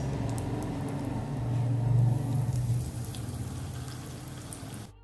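Batter-and-breadcrumb-coated onion ring sizzling and bubbling as it deep-fries in hot oil, over a low hum that swells about two seconds in. The sound cuts off sharply just before the end.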